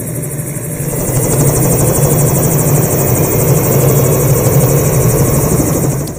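Enstrom 480B turbine helicopter running with its rotor turning, a steady loud drone with a strong low beat and a high hiss, swelling over the first second or so.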